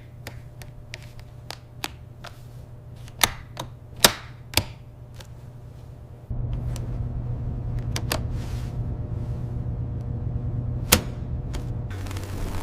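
Scattered sharp clicks and knocks over a low steady rumble. The rumble grows louder about six seconds in, and a loud crack comes near the end.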